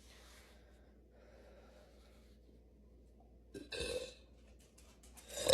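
A girl burping: faint breaths, then a short burp about three and a half seconds in, and a louder, longer burp that starts right at the end.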